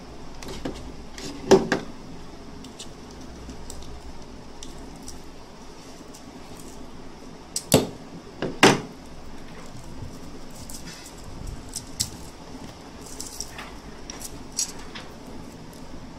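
A phone battery's foil casing and layers being peeled apart by hand: light crinkling and small clicks, with three sharp metallic clicks, one about a second and a half in and two close together around eight seconds in.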